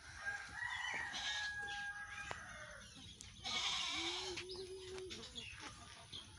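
Goat bleating, with one drawn-out bleat about four seconds in, after a brief rustle; birds chirp faintly around it.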